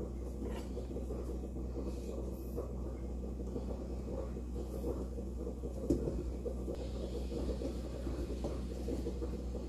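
A steady low kitchen hum, with a few faint ticks as frankfurters are sliced with a knife over a stainless steel bowl.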